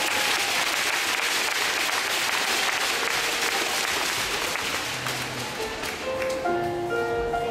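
Audience applauding, dying away about five seconds in; near the end, music with held notes starts up in the hall.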